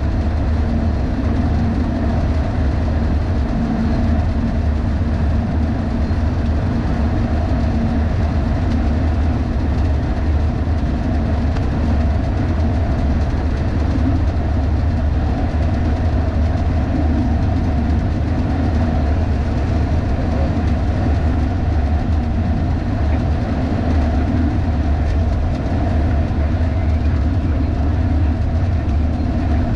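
MAN 4x4 truck driving at motorway speed: a steady, loud rumble of engine, tyres and wind, picked up by a camera on a pole above the cab roof.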